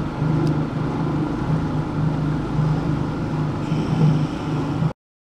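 Bass boat's outboard motor running steadily at idle speed while the boat is underway, a low pulsing hum. The driver suspects the propeller has spun its hub. The sound cuts off abruptly near the end.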